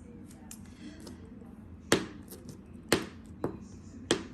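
Sharp knocks of a hand on a tabletop: three loud ones about a second apart, starting about two seconds in, with a fainter one between the second and third.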